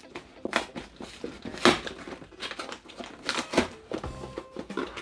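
Cardboard product box being worked open by hand, its flaps and packing crackling and scraping in irregular strokes.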